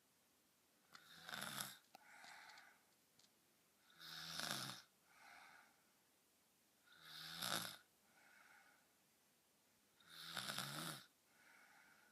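A girl snoring deeply: four snores about three seconds apart, each followed by a softer, shorter breath sound.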